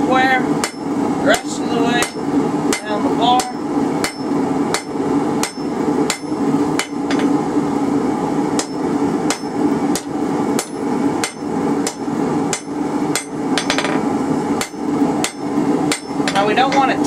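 Hand hammer striking red-hot rebar on an anvil, a steady run of sharp blows a little under two a second, squaring the round bar down into a flat rectangular section.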